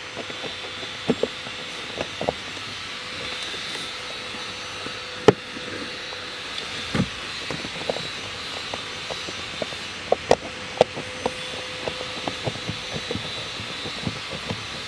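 Hands working on plastic dashboard trim in a car's footwell, putting a self-tapping screw back by feel: scattered small clicks and knocks, with one sharper knock about five seconds in, over a steady rushing noise.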